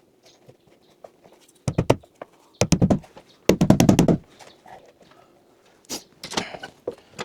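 Bursts of rapid knocking as a cable is fastened to the cabin wall, the longest and loudest lasting about a second, a little before the middle.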